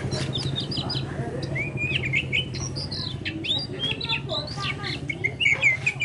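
Oriental magpie-robin singing: a rapid, varied run of short chirps and quick whistled notes, over a steady low hum.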